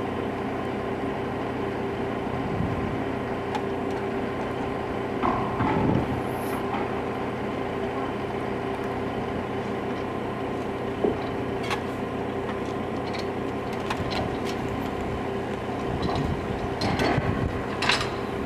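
Railway maintenance motor car's engine idling with a steady hum, with a few scattered knocks and clanks from the work, the loudest near the end.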